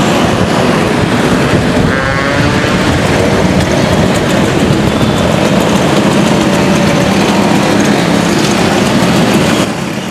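Motor scooter engines running together in a dense, steady din, with one engine revving up about two seconds in.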